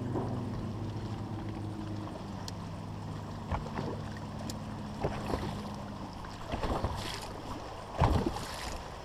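A boat motor's steady low hum fades out over the first two or three seconds, followed by scattered knocks and handling noises on the boat, the loudest about eight seconds in.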